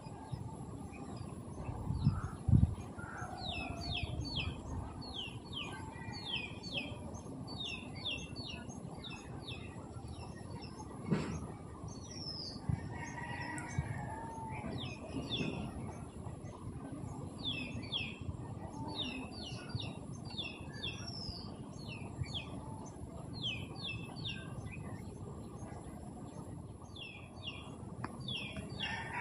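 Small birds chirping: repeated clusters of short, quick high chirps over steady outdoor background noise, with a couple of dull thumps a couple of seconds in and a sharp click near the middle.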